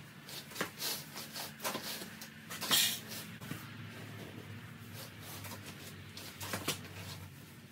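Knife cutting and pulling apart a thick batt of paper-faced rock wool insulation: scattered rustling and scraping strokes, the loudest a little under three seconds in.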